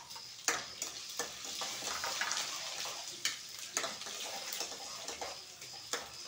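Peanuts, dals, chillies and garlic sizzling in hot oil in a kadai as a tempering is roasted, stirred with a steel spoon that clicks and scrapes against the pan every second or so.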